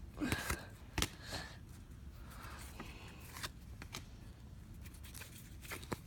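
Baseball cards being handled and flipped through: quiet, scattered rustles and light taps of card stock.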